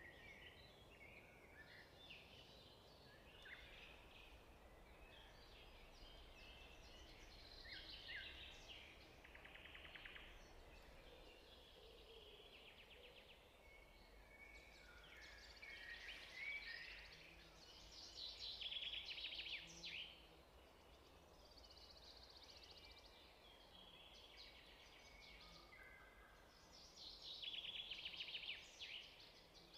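Faint birdsong: scattered chirps with a rapid trill now and then, over a steady low hum.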